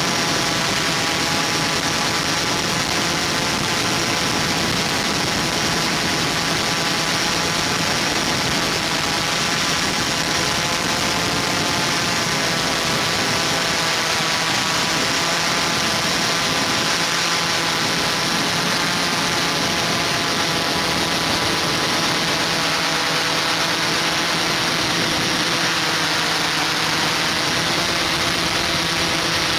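Multirotor drone's motors and propellers running steadily, heard close up on the drone's own camera microphone: a constant rushing noise with a whine that wavers slightly in pitch.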